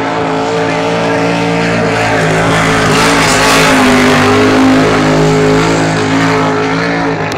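Cracker box drag boat engine at full throttle as the boat runs past. It is a loud, steady drone that swells to its loudest about midway, with a rushing hiss at the peak, then eases off slightly.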